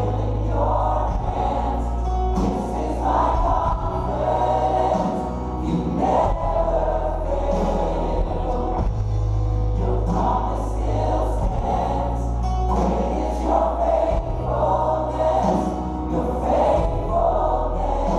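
Live worship song: a band playing sustained low bass and keyboard notes under phrases sung by many voices together, the worship team and congregation. The hall adds reverberation.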